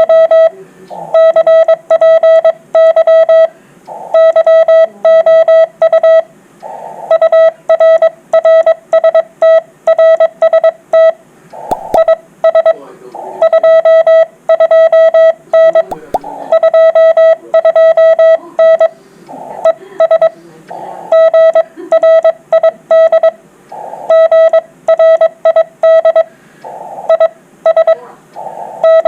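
Morse code (CW) on an amateur radio transceiver: one steady mid-pitched beep keyed on and off into dots and dashes, over faint band noise and weak background signals from the receiver.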